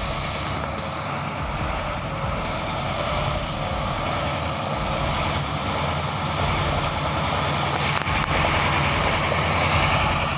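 Heavy logging truck's engine running hard under load as it struggles in mud, with a dense, steady rumble that grows a little louder toward the end.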